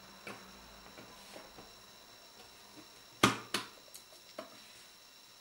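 Clicks of plastic and circuit board as a Garmin nüvi 250 GPS's board is pried up out of its plastic case with a plastic pry tool: faint small clicks at first, then two loud sharp snaps a little past three seconds in and two lighter clicks after.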